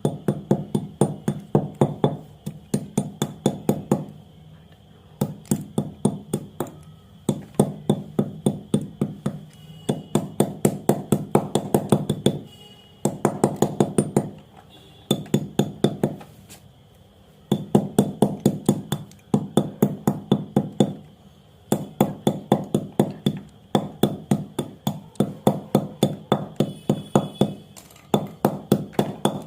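White slate pencils being crushed by rapid pounding strikes, about six hard clicking taps a second, in runs of a few seconds broken by brief pauses.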